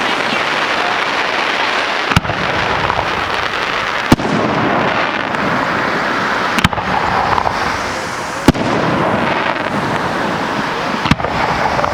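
Aerial firework shells bursting in a display: five sharp bangs roughly two seconds apart, over a constant noisy background.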